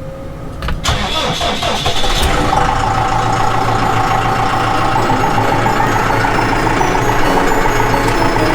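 A vehicle engine cranks about a second in, catches, and settles into a steady idle about two seconds in.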